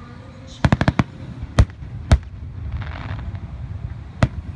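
Fireworks display: a quick string of about five sharp cracks about a second in, then three single bangs spaced over the next few seconds, the last near the end.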